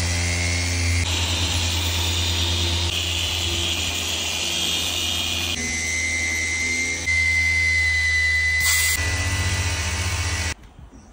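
Small handheld machine polisher running on car paintwork, a steady motor hum with a thin high whine. Its pitch and tone change abruptly several times, and it cuts off suddenly near the end.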